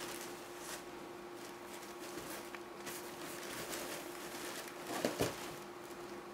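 A cat playing against a fabric cat tunnel on a tiled floor: soft rustling and scratching of paws and claws, with two soft thumps about five seconds in, over a faint steady hum.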